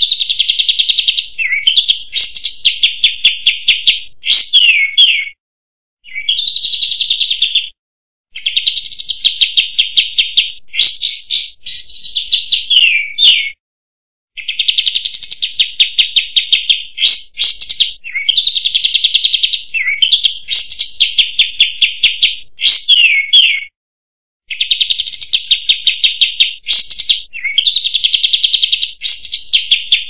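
Olive-winged bulbul (kapas tembak) singing: long phrases of rapid chattering notes mixed with quick rising and falling whistles, repeated phrase after phrase with short pauses between.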